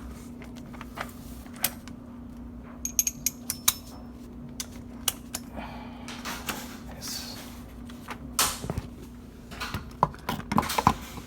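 Hand tools and car trim being handled: scattered clicks, knocks and metallic clinks, a few of them ringing briefly about three seconds in, and a quick run of clicks near the end, over a steady low hum.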